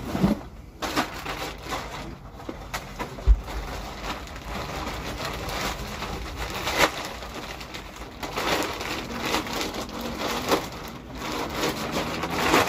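Clear plastic bag crinkling and rustling as clothes are handled and stuffed into it, in irregular bursts of crackle. A single dull thump about three seconds in.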